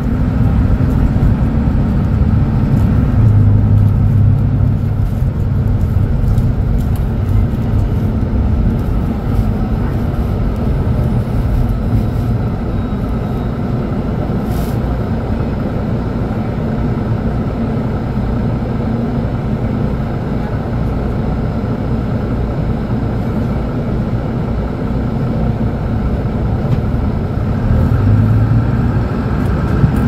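Mercedes-Benz O500U city bus's OM936 inline-six diesel engine running, a steady low rumble heard from inside the cabin. A deeper hum swells briefly a few seconds in and again near the end.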